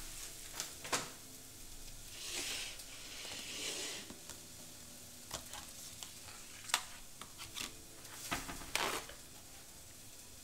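Food-prep handling sounds: several sharp clicks and knocks of utensils or containers, with two short bursts of rustling between about two and four seconds in, over a faint steady hum.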